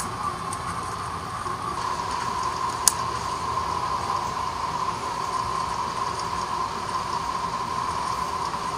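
Steady jet airliner cabin noise, an even rush of engine and air with a hum that grows louder about two seconds in. A single sharp click about three seconds in.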